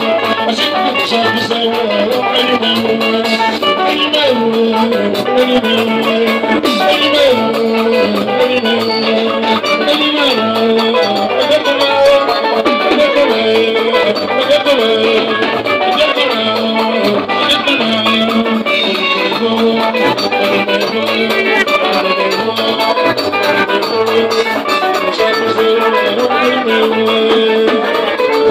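Live band music led by electric guitar lines over a steady drum rhythm, with little bass.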